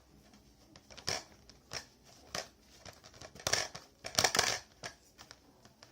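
Sticky, not-yet-finished white-glue slime being stirred and pulled apart by hand, giving irregular short tearing and crinkling noises, loudest in a cluster about the middle.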